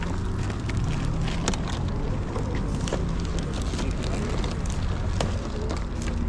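A steady low hum with scattered light clicks and knocks over it.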